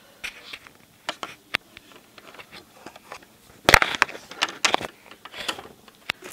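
Handling noise: scattered clicks, taps and rubbing as plastic toys and the camera are moved about, with a louder cluster of rustling knocks about four seconds in.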